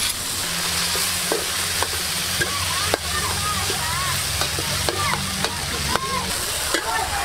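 Spice paste with shallots and garlic sizzling in oil in a wok, stirred with a metal spatula that scrapes and ticks against the pan.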